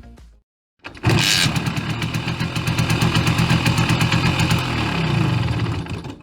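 Simson S51 moped's single-cylinder two-stroke engine catching about a second in and running at idle with a fast even beat, fading out near the end.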